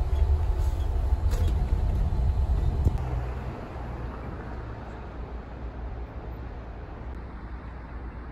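Low rumble of a bus's engine and road noise heard inside the cabin, with a couple of sharp clicks. About three seconds in it gives way to a quieter, steady low background rumble.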